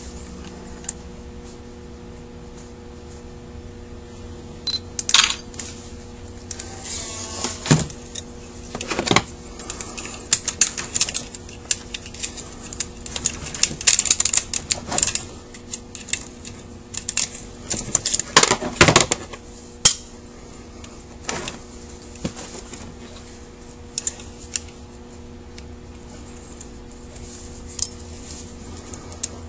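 Small metal parts of a Carter WA-1 carburetor clicking and clinking as it is handled and taken apart by hand: a scattered run of light clicks and knocks through the middle, over a steady low hum.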